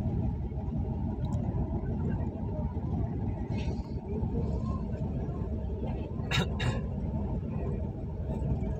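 Jeep engine running, heard from inside the cabin as a steady low rumble while the jeep creeps forward. About six seconds in there are two short, sharp sounds close together.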